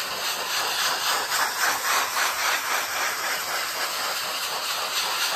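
Coarse-grit sanding block rubbed in small circles over a dried Rutland 211 refractory mortar coating on a kiln lid: a steady gritty scrape that swells and eases with each stroke.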